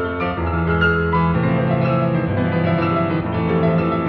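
Background piano music: slow, sustained chords over a changing bass line.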